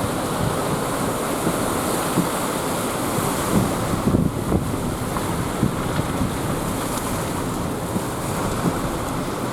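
Rough, typhoon-driven sea surging and breaking on a rocky shore in a steady wash of surf, with strong wind buffeting the microphone in short low thumps.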